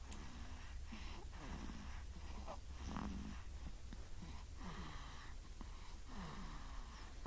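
A six-week-old baby snoring in sleep: soft, short noisy breaths, about one or two a second. Some breaths carry a low tone that bends in pitch.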